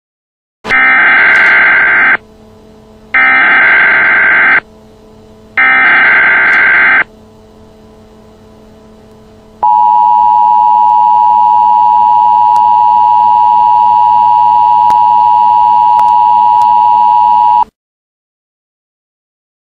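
Emergency Alert System alert opening: three short bursts of SAME header data tones, then the steady two-tone attention signal held for about eight seconds before cutting off sharply. It heralds the tornado warning that follows.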